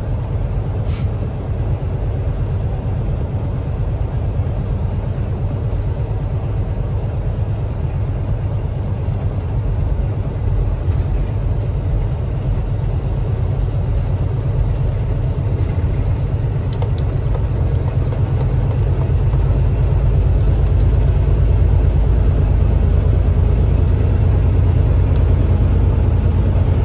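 Semi-truck cab interior at road speed: steady low engine and road rumble, growing louder about two-thirds of the way through.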